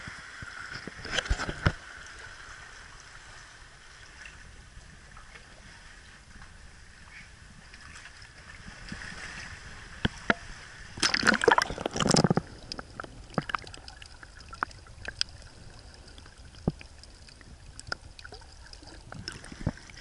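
Sea water lapping and sloshing against a kayak and the rocks close to the waterline, with scattered small splashes and knocks. A louder burst of splashing and bumping comes about eleven seconds in.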